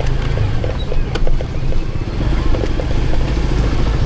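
Motor vehicle engine running steadily in a low rumble, with road noise and scattered clicks.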